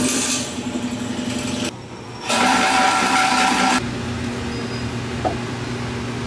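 Drill press running with a hole saw cutting through square steel tubing, with a hiss of aerosol lubricant spray at the start. About two seconds in, the cut turns loud with a high screech for about a second and a half, then settles back to the steady run of the motor and cutter.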